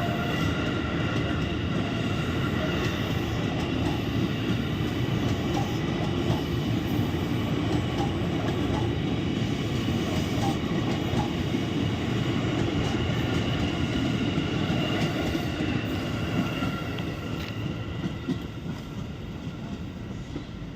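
KRL Commuter Line electric train running out of the station: a steady rumble of wheels on rail with several high, steady whining tones above it. It fades away over the last few seconds.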